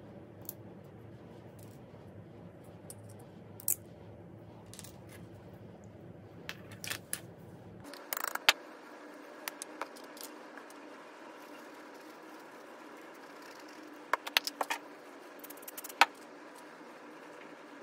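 Scattered sharp clicks and taps of hard plastic being handled: 3D-printed parts and plastic glue bottles picked up and set down on a workbench, in small clusters with the sharpest taps about eight and a half and sixteen seconds in. Under them runs a faint steady hum whose deep part stops about eight seconds in.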